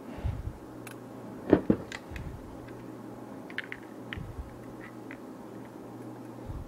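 Small metallic clicks and a few dull knocks as a stainless steel rod and a socket are handled and bent by hand on a workbench. The loudest knock comes about a second and a half in, over a faint steady hum.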